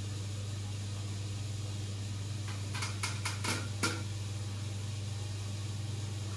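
Steady low hum of aquarium equipment, such as a filter or air pump, with a quick run of five or six sharp clicks around the middle.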